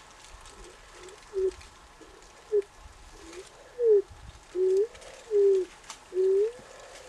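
Bird cooing: a series of soft, low, pure-toned calls, the first few short and spaced out, the later ones longer and louder, several sliding down in pitch.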